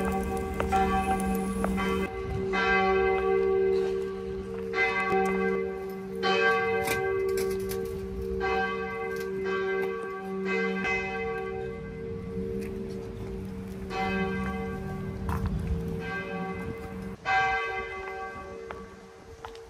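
Church bells ringing: repeated strikes every second or two, each ringing on, with the bells' low hum held steadily underneath. The ringing dies away near the end.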